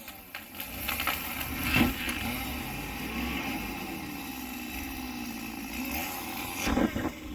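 A felled tree crashing down with a sharp loud hit about two seconds in, over a steady low rumble, with more crashing hits near the end.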